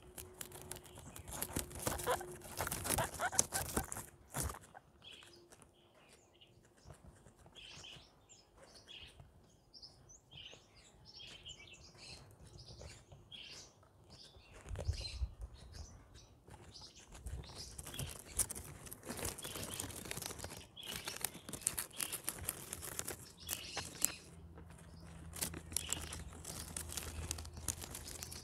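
Guinea pigs eating plants: chewing, tearing and rustling in busy crackly stretches near the start and through the second half. Short high chirps come and go in between.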